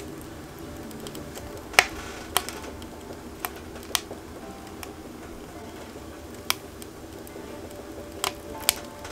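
Wood fire burning in a small wood stove, crackling with sharp, irregular pops over a low steady rush.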